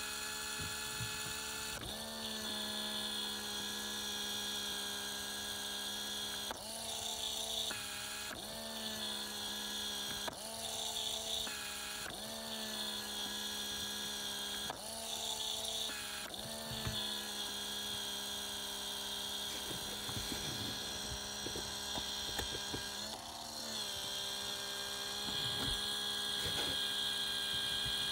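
Small electric defroster flap motor in a Citroën CX heater box running on continuously with a steady whine, its brass pinion driving a white plastic gear; the pitch dips briefly and recovers many times. A motor that runs without stopping like this can mean its axle has come loose from the gear.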